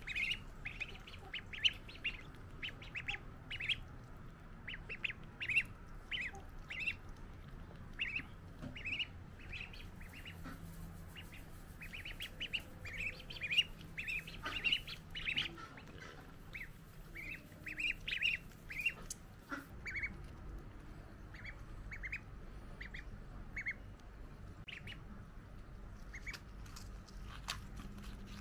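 Ducklings peeping: a quick run of short, high calls, many in a row through most of the stretch, growing sparser in the last several seconds.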